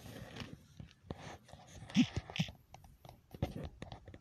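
Rustling and knocks of a handheld camera being moved about and of clothing, with two brief pitched sounds about two seconds in.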